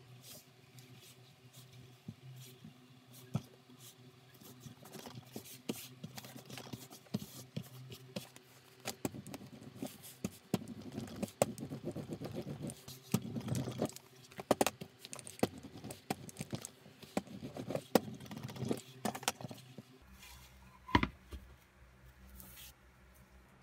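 Leather and fabric being handled and worked on a cutting mat: scattered taps and scrapes, with stretches of firm rubbing as a hand tool is pressed back and forth over the lining fabric. Near the end a single sharp knock as a wooden board is set down on the mat.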